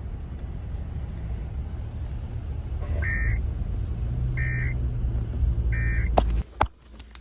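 Steady low road and engine rumble inside a moving car, with three short electronic beeps about a second and a half apart in the middle. Near the end come a few sharp clicks, then the rumble cuts off suddenly.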